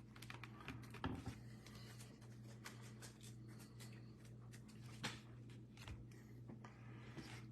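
Faint clicks and rustles of trading cards and packs being handled, over a steady low hum.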